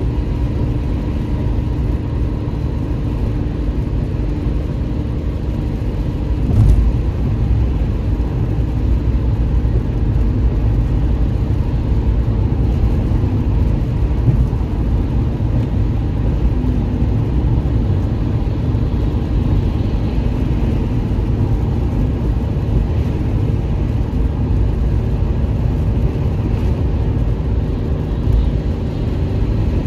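Car driving at highway speed: a steady low rumble of tyres and engine, with faint steady tones and a brief thump about seven seconds in.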